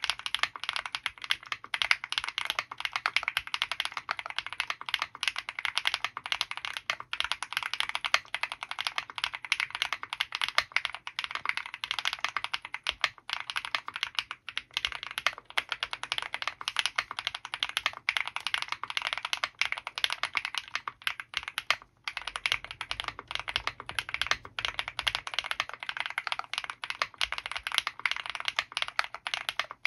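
Fast, continuous typing on an Owlab Mr.Suit mechanical keyboard fitted with KTT FBB F1 switches lubed with Krytox 205g0, GMK Serenity keycaps and EPT plate foam. It is a dense run of keystrokes with a couple of brief pauses.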